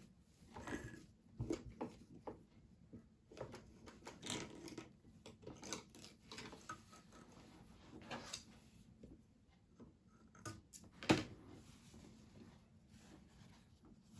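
Faint, irregular clicks, taps and rustles of things being handled, the loudest a sharp click about eleven seconds in; no machine is running.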